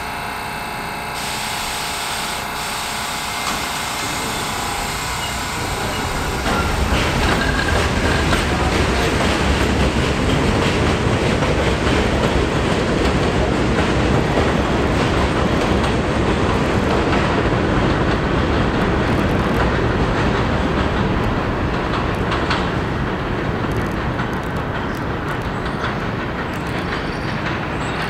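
New York City subway train running on an elevated steel line, its wheels clattering over the rail joints. A steady whine cuts off about a second in. A heavy rumble builds about six seconds in and eases off toward the end.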